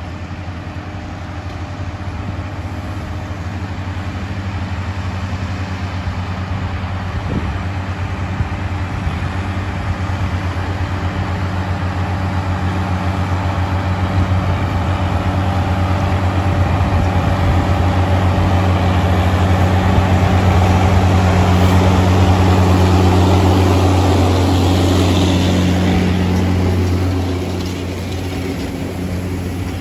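Two John Deere 6910 tractors' six-cylinder diesel engines running steadily under load, with McHale Fusion baler-wrappers working behind them. The sound builds slowly as they come closer, then drops off near the end as they pass either side.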